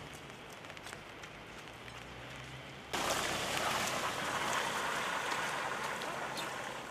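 Steady hiss of rain with scattered drop ticks over flooded ground, with a faint low hum under the first few seconds; the hiss steps up suddenly and grows louder about three seconds in.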